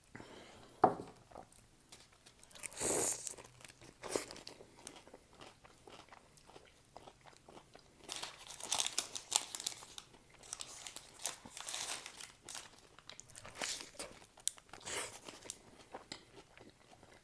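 Close-up sounds of a person biting and chewing a shawarma: wet crunching and smacking in irregular bursts, with a sharp bite or click about a second in.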